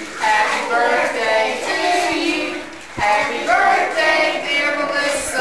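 A group of young children singing a song together, with a woman's voice among them, in phrases with a short break about halfway through.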